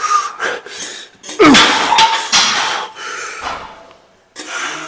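Loaded barbell clanking and thudding during a set of incline bench presses, with the lifter's strained grunts. The loudest hit comes about a second and a half in, with further hits and grunts after it.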